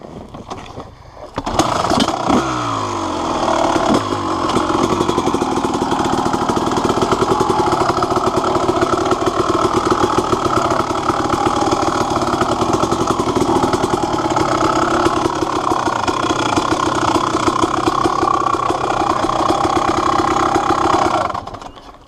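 Honda CR250R two-stroke dirt bike engine coming in loudly about a second and a half in, then running hard under throttle as the bike is ridden along a dirt track. It cuts off suddenly near the end.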